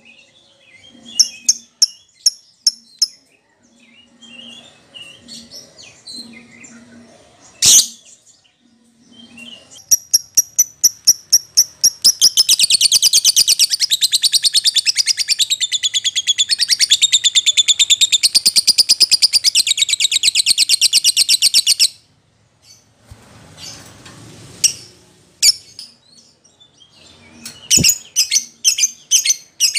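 Lovebird calling: sharp high chirps, then a run of chirps at about four a second that about twelve seconds in becomes a long, very fast chatter (the 'ngetik' song that fighter lovebirds are trained on), which goes on for about ten seconds and cuts off suddenly before scattered chirps resume. A single sharp click comes about eight seconds in.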